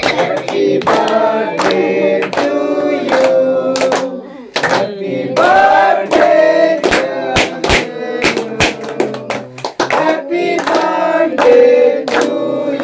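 Singing with musical accompaniment, and hands clapping in a steady rhythm along with it.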